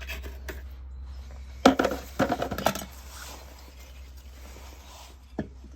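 A quick run of metal clinks and clicks, like small metal parts or tools being picked up and set down, with one more click near the end, over a steady low hum.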